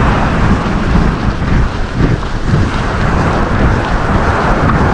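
Wind buffeting the microphone: a loud, uneven low rushing noise with no let-up.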